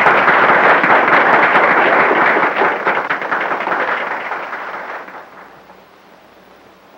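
Crowd applauding, then dying away about five seconds in.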